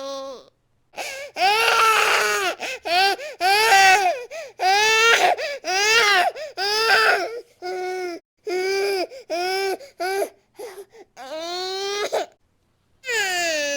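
Baby crying hard: a run of short wails one after another, each rising and falling in pitch, with brief catches of breath between them, and a longer, held wail starting near the end.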